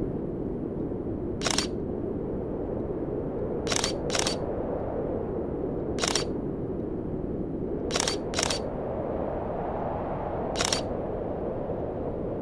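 Canon DSLR shutter clicking seven times at uneven intervals, twice in quick pairs, over a steady rushing background noise.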